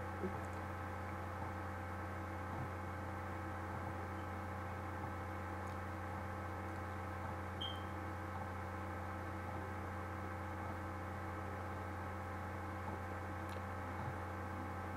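Steady electrical mains hum with a stack of overtones, with a brief faint high chirp about halfway through.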